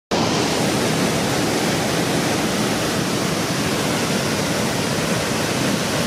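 Harajiri Falls, a broad waterfall in heavy flow after days of rain, rushing with a steady, unbroken sound of falling water.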